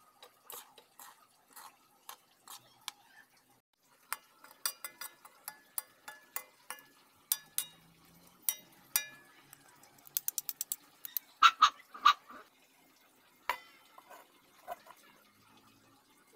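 A metal spoon scraping and clinking against a wok while stirring fried rice, with ringing metallic taps. A quick run of taps and a couple of louder clanks come about two-thirds of the way through.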